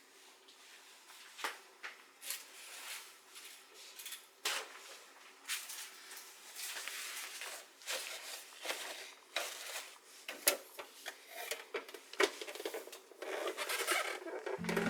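Close-up household handling sounds: a series of light clicks and taps with rustling and scraping in between. Acoustic guitar music starts near the end.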